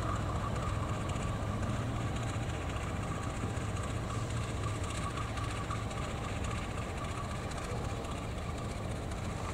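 Diesel locomotive running slowly along the track: a steady low engine drone with a thin high whine over it, the drone easing slightly after about six seconds.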